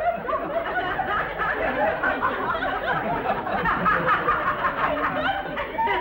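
Studio audience laughing, many people chuckling at once.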